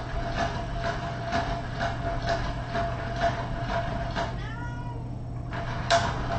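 A kitten meows once, a short call rising and falling in pitch, about four and a half seconds in. Light taps and knocks from kittens playing run through, over a steady hum.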